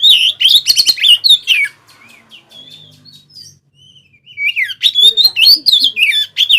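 Oriental magpie-robin (kacer) singing loud, varied phrases of quick whistles mixed with rapid clicking notes. It sings in two bursts with a quieter pause of about two and a half seconds between them.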